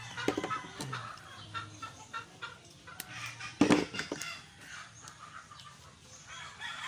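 Chickens clucking repeatedly, with a few sharp knocks, the loudest a little under four seconds in.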